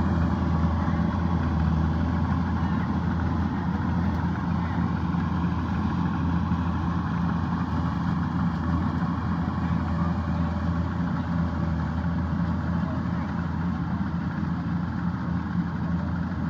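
Kubota DC-105X combine harvester's diesel engine running steadily at a constant pitch.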